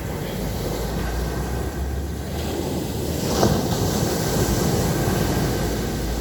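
Sea surf breaking on a beach: a steady wash of waves, with one louder break about three and a half seconds in. Wind rumbles on the microphone underneath.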